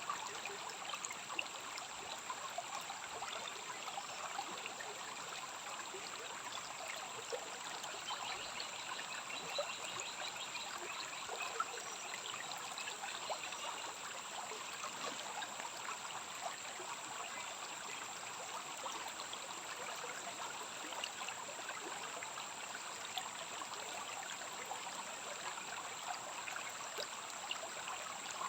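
A small forest stream trickling and splashing steadily over stones, with a steady high-pitched whine above it.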